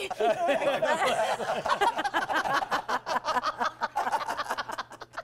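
Slowed-down playback of people talking and laughing, the voices dragged low and drawn out so that no words can be made out.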